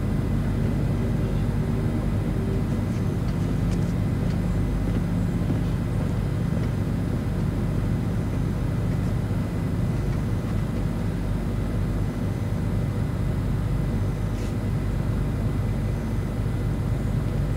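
Steady low rumble from a TV drama's soundtrack being played back, with a faint steady high tone above it.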